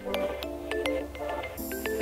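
Background music: held low notes changing every half second or so, under short plucked notes and light percussive clicks.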